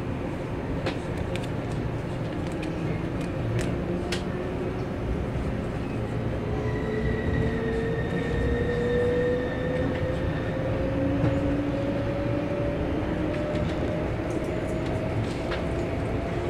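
Inside a 485-series electric train accelerating away from a station: a running rumble with a motor tone that rises steadily in pitch as the train gathers speed, and a few sharp clicks in the first four seconds.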